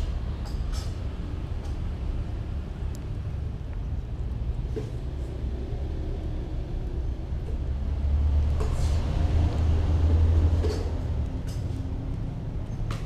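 A cat chewing and licking rice close to the microphone, heard as scattered sharp clicks over a steady low rumble. The rumble swells from about eight to eleven seconds in.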